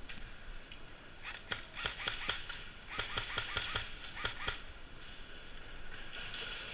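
Airsoft guns firing: a string of sharp snaps, some in quick runs, from about one to four and a half seconds in.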